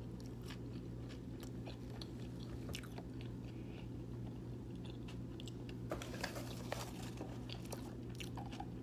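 Close-miked chewing of a mouthful of pizza: small crunches and wet mouth clicks scattered throughout, busier about six to seven seconds in, over a steady low hum.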